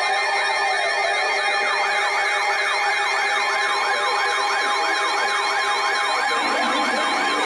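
Several electronic sirens sounding at once: fast rising-and-falling yelps over steady tones, with a slower wail in the first few seconds.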